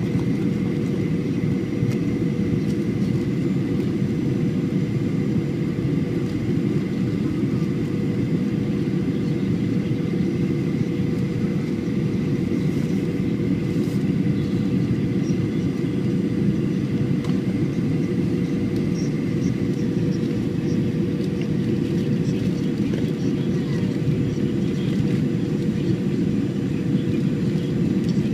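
Boeing 737-800 cabin noise in flight on descent: the steady rumble of engine and airflow, with a constant low hum and a higher whine that drops out about two-thirds of the way through.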